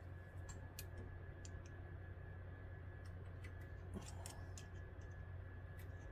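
Faint, scattered small clicks and ticks of a 3D printer hot end's wires and plastic parts being handled by hand, over a steady low hum.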